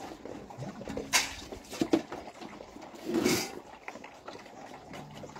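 Hounds waiting at their food bowls make small animal noises while food is served. Sharp knocks from the bowls come about a second in and again near two seconds, and a longer rustling burst comes a little past three seconds.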